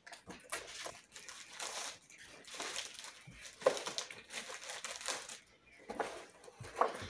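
Clear plastic packaging crinkling and rustling in irregular spells as it is pulled off an item unpacked from a gift box.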